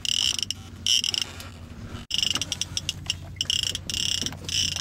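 Accurate two-speed fishing reel clicking and ratcheting in short, irregular bursts as a large striped bass is cranked in on a bent rod, with a low steady hum underneath.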